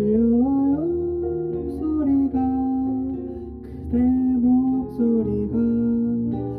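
Music: a song played on acoustic guitar, with a melody line of held, gliding notes over the guitar accompaniment.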